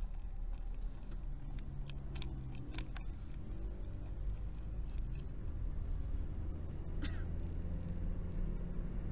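Steady low engine and road rumble of a car heard from inside the cabin, with a few sharp clicks about two and three seconds in.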